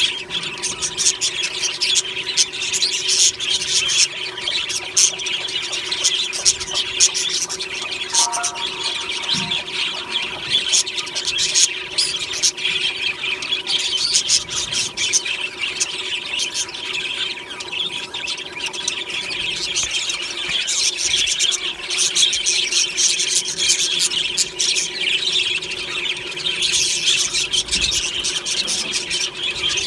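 Flock of budgerigars chattering continuously, a dense mix of warbles, squeaks and short clicks, over a steady faint hum.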